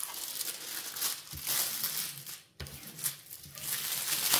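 Clear plastic protective film on a diamond painting canvas crinkling as hands lift it off the sticky surface and smooth it down, with a brief pause a little past halfway.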